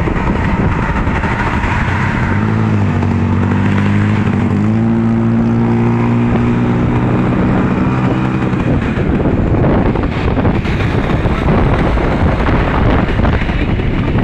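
Tour bus driving past in busy city traffic. Its engine note stands out for several seconds, dipping and rising in pitch, over steady traffic noise.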